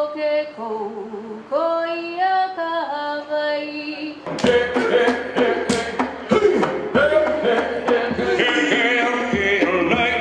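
A solo unaccompanied chant with long held notes, then, about four seconds in, a group of voices chanting and shouting over a run of sharp percussive hits for a Polynesian dance.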